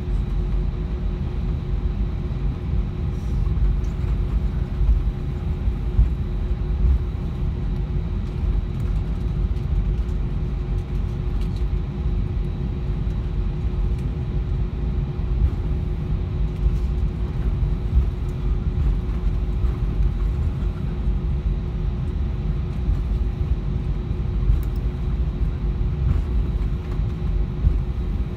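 Cabin noise inside an Airbus A320 taxiing: a steady low rumble from the engines at idle and the wheels rolling on the taxiway, with a faint steady hum over it.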